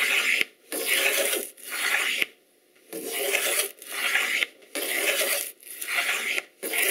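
Wooden hand plane taking repeated shavings along a groove in a board: a rasping hiss with each push, about one stroke a second, with a brief pause a little past two seconds in.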